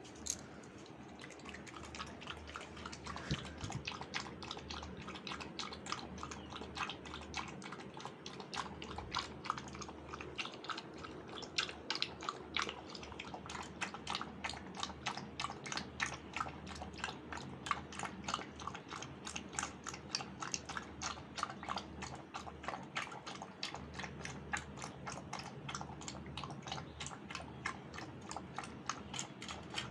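A 40-day-old Labrador puppy lapping milk fast from a steel bowl: a steady run of quick, closely spaced lapping clicks.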